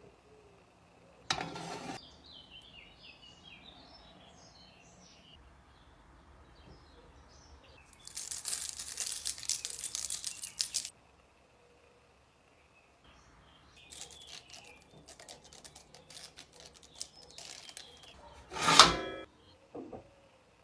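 Small birds chirping in the background, over kitchen handling noises: a short rustle early on, a few seconds of hiss about eight seconds in, scattered clicks, and a loud knock near the end.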